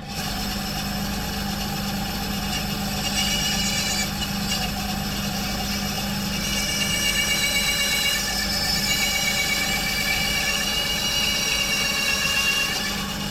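Electric motor of a home-built metal bandsaw switched on and running steadily, driving the blade, with a steady low hum and a high wavering whine that grows stronger after a few seconds. The motor is running backwards, so the blade travels up instead of cutting down; the owner puts this down to the motor body having been reassembled the wrong way round.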